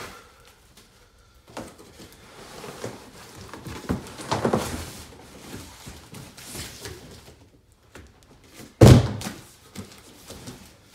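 Cardboard shipping carton being handled and opened: flaps and cardboard scraping and rustling, louder about four seconds in. Near nine seconds there is one loud, low cardboard thunk as the boxed guitar is pulled free of the carton.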